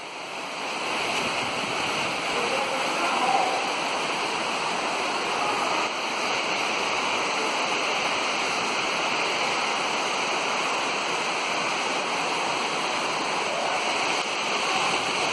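Shallow creek running over rocks: a steady, even hiss of flowing water.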